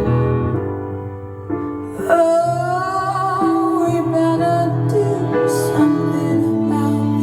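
A slow song with held instrumental chords; about two seconds in, a long melody note with vibrato comes in, most likely a woman's voice.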